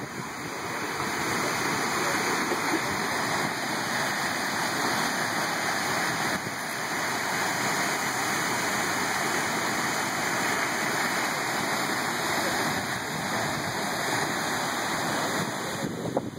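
Wailua Falls, a two-stream waterfall plunging into its pool, giving a steady rush of falling water that eases slightly near the end.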